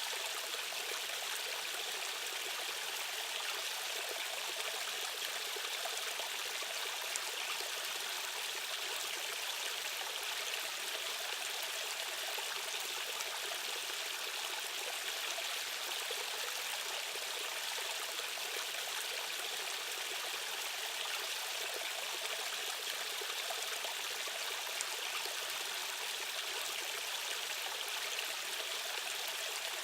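Stream water rushing in a steady, unbroken flow, mostly a high, hissing wash with little low rumble.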